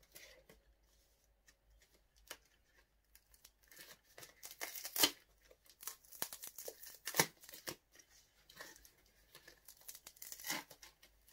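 Paper wrapping torn and crinkled by hand as a wrapped gift is opened. Irregular rustles and sharper rips, sparse at first, with the loudest about five seconds in and again about seven seconds in.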